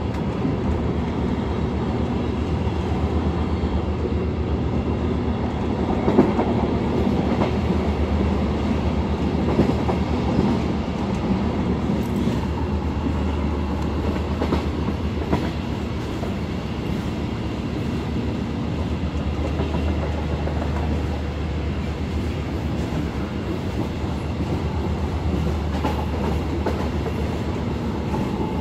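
MR-class diesel multiple unit running along the line: a steady low drone of the running train, with a few sharp clicks of the wheels over the track.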